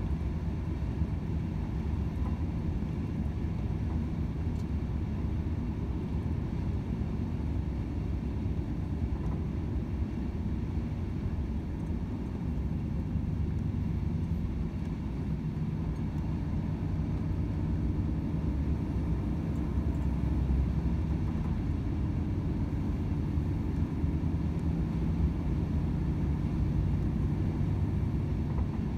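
Volvo FH 500 truck's 13-litre straight-six diesel running steadily on the move: an even low drone mixed with road rumble, with no gear changes or sudden sounds.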